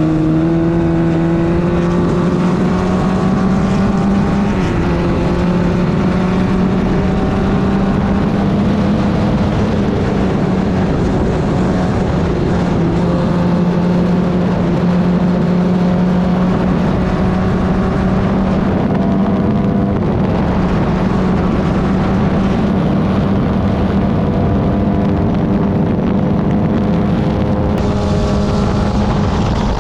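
Club Ford open-wheel race car engine running hard at racing speed, its pitch climbing through the revs and dropping back at each gear change or braking point, several times over.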